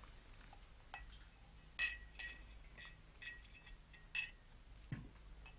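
Glassware and cutlery clinking at a dinner table: a quiet, scattered series of short, ringing clinks.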